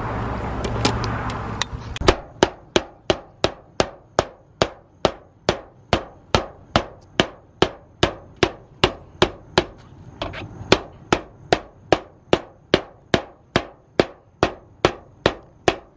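A mallet pounding the standing seam of a 26-gauge Galvalume steel roof panel flat, in a steady run of sharp blows about two and a half a second that starts about two seconds in. The end of the seam is being flattened so it can lock into the valley piece.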